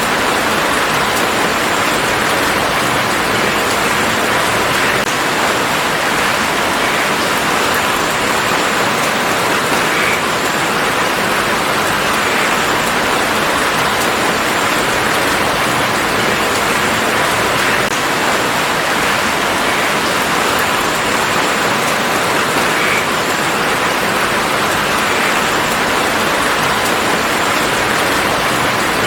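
Steady rain falling on a garden, a dense even patter with occasional individual drops standing out.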